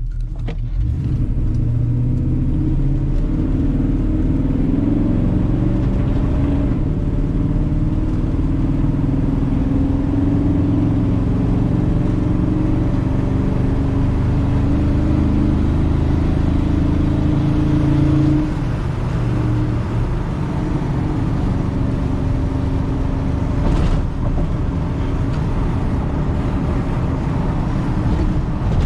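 Car with a newly built engine being driven: the engine runs steadily under way, its pitch shifting a little, with a brief drop in level about 18 seconds in.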